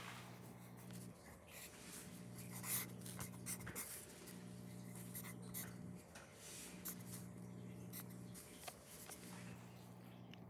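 Yellow wooden pencil scratching on lined notebook paper in short, irregular strokes as digits are written, over a faint low hum.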